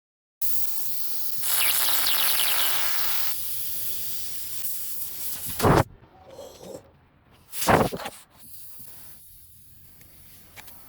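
Steady hiss of air, louder for a couple of seconds, then two short, loud whooshes about two seconds apart.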